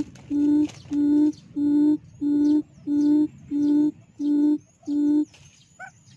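Recorded quail call played through a loudspeaker as a trapping lure: a steady run of low hoots, about one and a half a second, that stops about five seconds in. A few short, higher chirps follow near the end.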